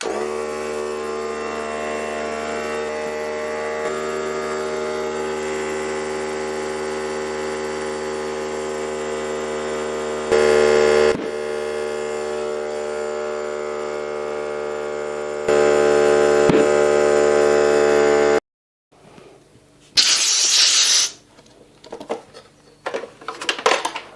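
Electric tyre pump running steadily as it inflates a motorcycle tubeless tyre to seat the beads, its note getting louder twice, with two sharp cracks as the beads snap onto the rim. The pump cuts off, then comes a second-long hiss of air and a few small clicks.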